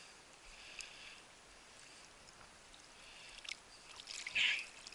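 Faint rustling of a person moving through wet marsh grass, with a few sharp clicks and one louder swish about four and a half seconds in.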